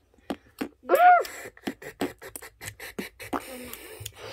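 A child making mouth noises: a quick string of sharp clicks and pops, about four or five a second, with a short squeal that rises and falls about a second in.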